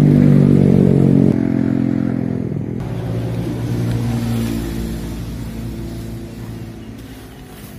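An engine running, loud for about the first second, then dropping in pitch and fading away gradually.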